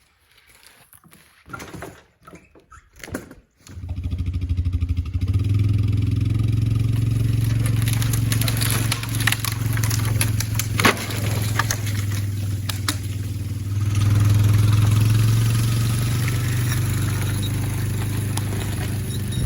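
A few knocks, then an engine starts about four seconds in and runs steadily with a deep hum, getting a little louder about two-thirds of the way through.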